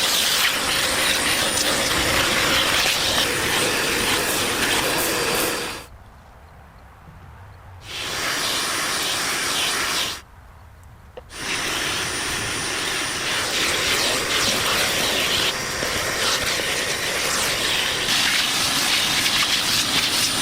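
Steady loud hissing that cuts off abruptly twice, once for about two seconds and once for about a second, starting again each time.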